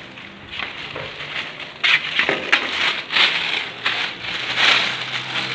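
Irregular crunching and rustling that starts suddenly about two seconds in and continues in rough, uneven bursts.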